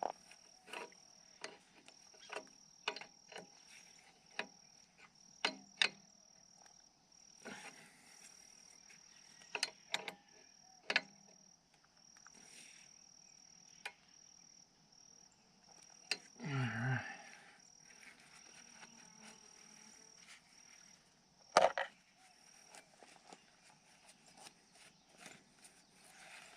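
Irregular sharp metallic clicks and knocks of hand tools on hydraulic hose fittings, one of them loud about two-thirds of the way in. Behind them an insect chirps in a steady high pulsing tone.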